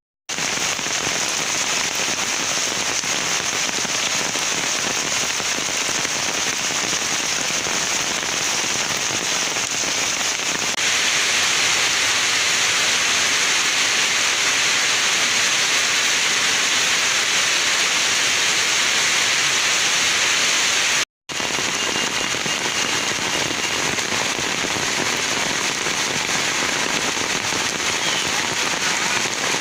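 Steady rain falling, a continuous hiss with no words. It grows a little louder and brighter about a third of the way through and breaks off for an instant about two-thirds through.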